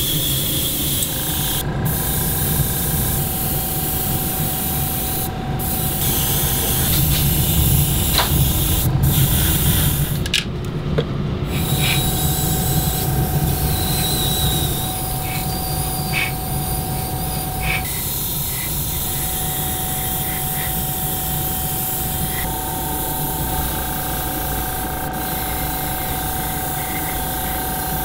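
An airbrush spraying paint with a continuous hiss of air, which cuts out for a moment several times. A steady hum runs underneath.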